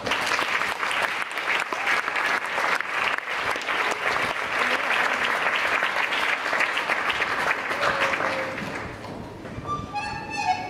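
Audience applauding, dying away after about nine seconds. Near the end an instrumental folk tune starts up.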